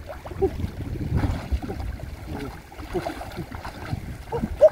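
Muddy water sloshing and splashing as people wade waist-deep and rummage by hand through submerged grass clumps. Short pitched chirps are scattered through it, the loudest near the end.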